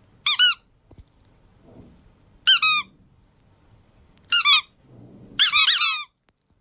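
High-pitched squeaks from the squeaker in a plush chick toy, coming in four short bursts of one to four quick squeaks each, with faint rustling between.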